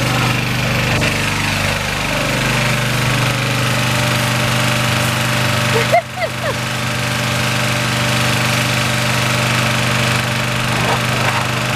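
Gas-powered pressure washer's small engine running steadily at a constant speed, with the hiss of the spray wand's water jet.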